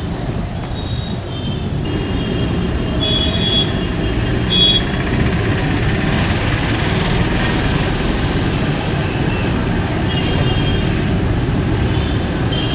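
Street traffic ambience: a steady low rumble of passing motorbikes and scooters, with a few short high-pitched tones now and then.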